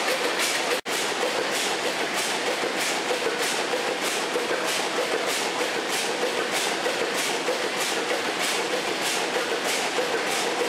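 A machine or engine running with a steady, even beat of about two to three strokes a second over a continuous hum. The sound cuts out for an instant just under a second in.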